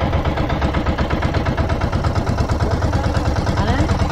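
Bangka (outrigger boat) engine running steadily while underway, with a fast, even pulsing beat.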